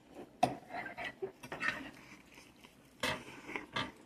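A few light knocks and clicks of things being handled, with soft clatter between; the sharpest knocks come about half a second in and again around three seconds.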